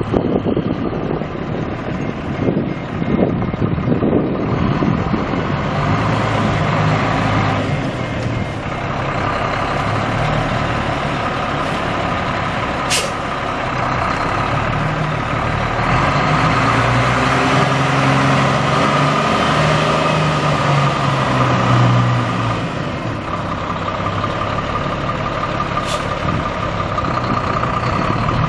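Cummins M11 10.8 L inline-six turbo diesel of a 1999 Volvo VNL semi truck running, its note rising and falling once near the middle as it is revved. Two short, sharp high sounds cut in, one about halfway and one near the end.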